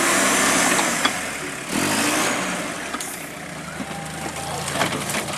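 Off-road trial vehicle's engine running hard under load, revving up again just under two seconds in, then easing off toward the end.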